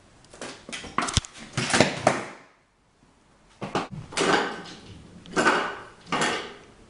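Household objects clattering and banging as a cat knocks things about indoors: two spells of knocks, rattles and scrapes with a short near-silent break between them.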